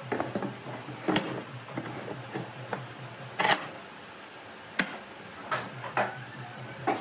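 Steel pipe clamps being set and tightened across a wooden panel: a series of sharp knocks and clacks as the clamp heads and pipes are placed against the boards and the workbench, over a steady low hum.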